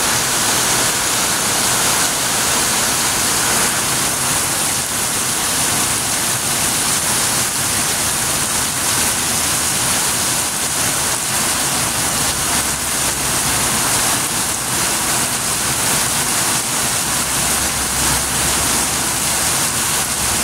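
Heavy rain falling steadily: a dense, even hiss of a downpour.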